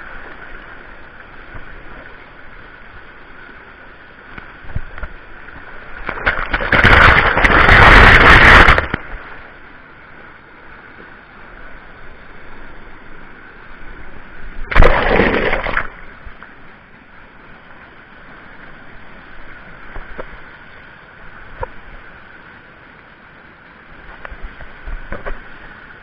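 Small waterfall rushing into a rock pool, heard close up, with water splashing loudly against the microphone twice: for about three seconds some six seconds in, and briefly about fifteen seconds in.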